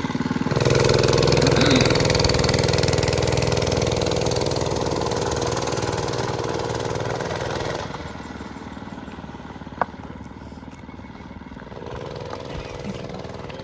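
Mini bike's small engine running close by at a steady pitch, easing off slowly and then dropping away about eight seconds in. A single sharp click comes near ten seconds, and a fainter engine is heard again near the end.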